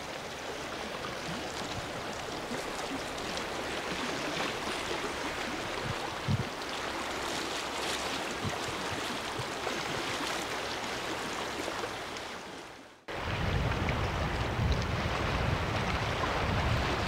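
Small lake waves lapping against a rocky shore, with a steady breeze. About 13 s in the sound briefly drops away, then comes back louder, with wind buffeting the microphone.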